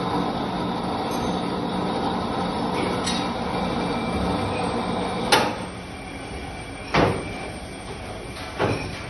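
Electric chain hoist running with a steady hum as the hook is hoisted, stopping with a metallic clank about five seconds in; two more sharp metal clanks follow.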